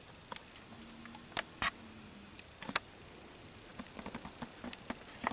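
Faint handling noise: scattered small clicks and taps, a few sharper ones in the first three seconds, with a brief low hum about a second in over a faint steady high whine.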